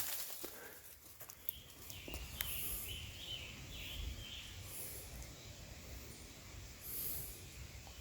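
Quiet woodland ambience after a wood knock: a run of faint bird chirps about two to four seconds in, with brief very high buzzes every couple of seconds and a low wind rumble.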